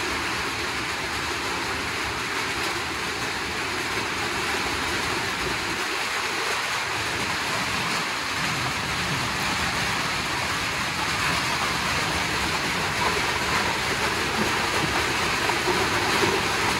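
Heavy rain on a corrugated metal shelter: a steady, very noisy hiss that drowns out talk, growing slightly louder toward the end.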